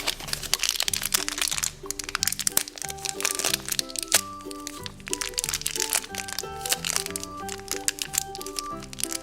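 Surprise eggs being cracked open by hand, with many quick crackling snaps and the crinkling of wrappers throughout, over background music with a simple repeating melody.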